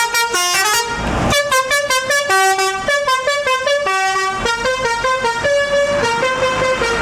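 Indonesian tour bus's telolet basuri melodic horn playing a tune note by note, the notes quick at first and then held longer. A short rushing burst comes about a second in.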